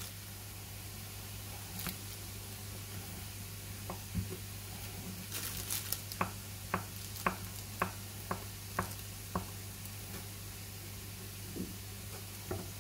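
Pan of minced chicken and vegetables sizzling quietly as it stews on low heat, with a steady low hum under it. About halfway through there is a run of light clicks, roughly two a second.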